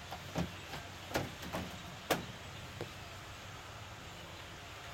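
Metal pétanque boules clacking together: about half a dozen sharp, irregularly spaced clacks, the loudest about two seconds in.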